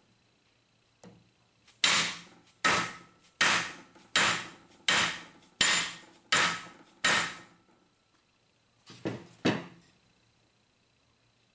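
Non-marring hammer striking a stainless steak knife blade against the small anvil face of a cast iron bench vise, to flatten a bent point: a steady run of eight blows, about one every three quarters of a second, then three quicker blows near the end.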